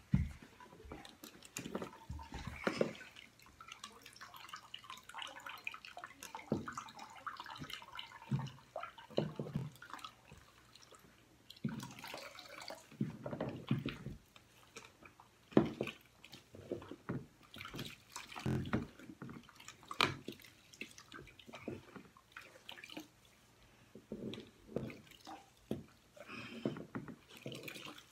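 Water splashing and dripping in irregular bursts as a Baby Alive doll is rinsed of soap by hand.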